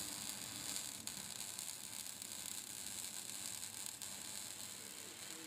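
Electric arc welding: the arc gives a steady high hiss with a few faint crackles.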